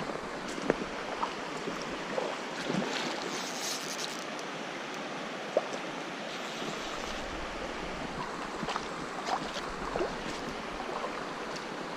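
Steady rush of a small creek's flowing water, with brief ticks and small splashes now and then. A low rumble of wind on the microphone comes in about halfway through.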